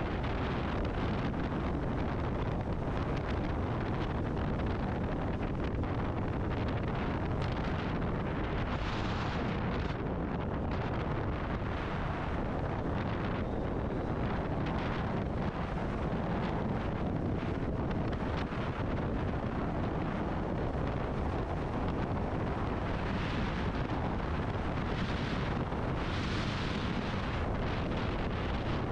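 Wind rushing and buffeting over the microphone on a moving motorcycle, with engine and road noise underneath.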